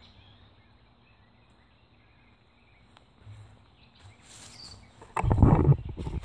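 Quiet outdoor ambience with a few soft rustles, then about five seconds in a sudden loud, rumbling handling noise as the camera is picked up and moved.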